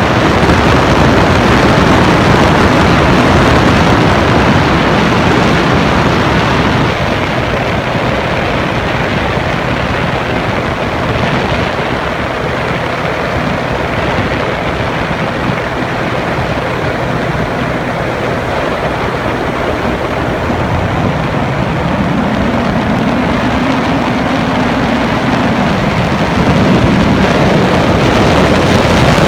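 An engine runs steadily under a loud, continuous rushing noise, and its pitch rises and falls briefly about three quarters of the way through.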